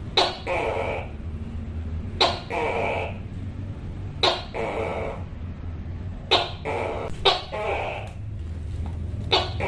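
Tokay gecko calling "to-kay" over and over. Each call is a sharp clipped first syllable followed by a longer, hoarse second syllable, and the calls repeat about every two seconds, with two coming closer together past the middle. A steady low hum runs underneath.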